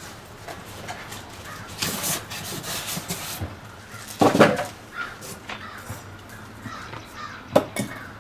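Cardboard and plastic packaging rustling and scraping as a pressure washer box is unpacked, with a loud harsh sound about four seconds in and a sharp knock near the end.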